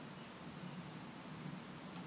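Faint steady hiss with a low hum underneath: room tone, with no distinct handling sounds.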